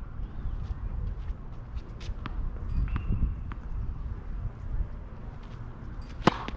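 Tennis serve on an outdoor hard court: the racket hits the ball with one sharp crack near the end. Before it come a few faint taps of the ball bounced on the court, over a low wind rumble.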